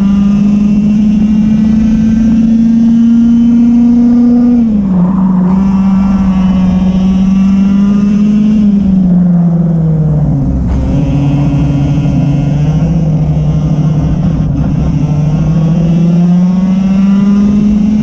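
Racing kart's engine heard onboard at speed, with rushing air noise. Its pitch holds high, drops sharply about five seconds in and falls further around ten seconds in as the kart slows for corners, then climbs steadily as it accelerates again, dropping once more at the very end.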